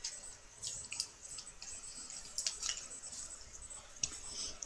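A handful of faint, scattered clicks and light rustling from small cosmetics being handled, such as lipstick tubes being picked up and uncapped.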